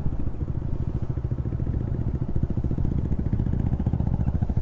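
Motorcycle engine running steadily, its rapid even firing pulses carrying through with no change in speed.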